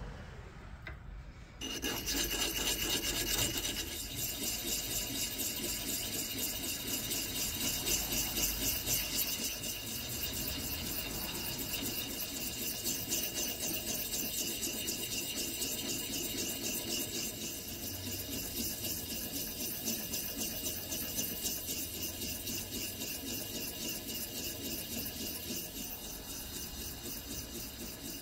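Small hand-held diamond hone rubbed along the steel edge of a HYTEST axe bit in quick, even strokes, a steady rasping that starts about a second and a half in: honing the freshly filed edge.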